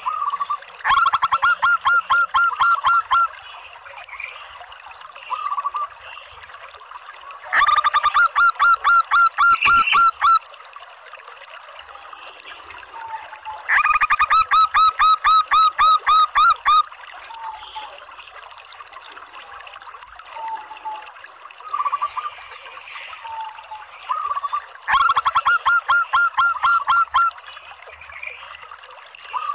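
Female zebra dove (local perkutut) calling: four bursts of rapid staccato notes, each lasting two to three seconds, with short single notes in between. It is the female call used as a lure to set male perkutut singing.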